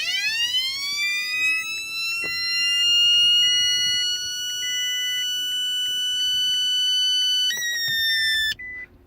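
Siren-like electronic whine from a failing Toyota Prius radio, played through the dashboard speaker rather than coming from the ABS system. The tone sweeps up over about a second, holds at a steady high pitch, jumps slightly higher near the end and cuts off suddenly. Faint short beeps repeat underneath.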